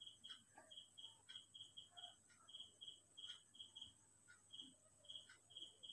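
Near silence: faint, short high chirps at one steady pitch, repeating in quick runs, with a faint soft tap about once a second.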